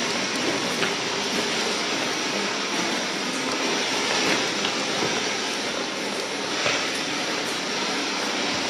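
A steady rushing hiss of noise with a few faint crackles, even in level throughout.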